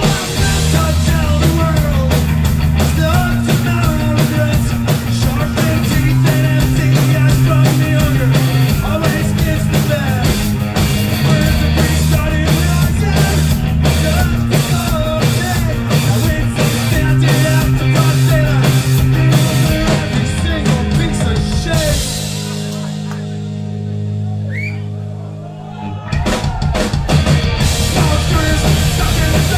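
Loud live rock band with two drum kits pounding together under distorted electric guitar and bass. About three quarters of the way through, the drums stop for a few seconds, leaving held guitar and bass chords with a rising guitar squeal, then both drum kits crash back in.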